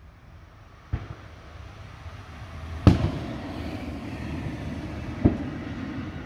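Fireworks going off: three sharp bangs, about a second in, near three seconds and about five seconds in, the middle one loudest, each echoing. Under them is a steady noisy rumble that grows louder after about two seconds.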